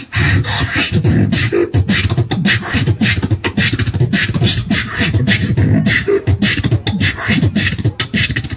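Live beatboxing into a handheld microphone, amplified through a small portable speaker: a fast, dense run of mouth-made drum sounds with no pauses.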